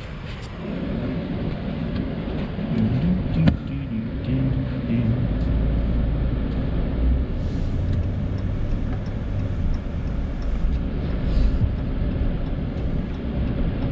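Pickup truck's engine and tyre rumble heard from inside the cab while driving slowly along a street, the engine note rising and falling a few seconds in. There is a single sharp click partway through.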